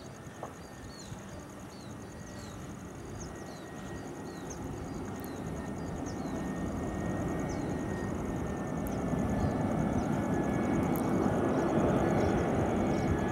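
Twin-engine jet airliner on final approach, its engine noise growing steadily louder as it comes closer, with a thin steady whine above the rumble.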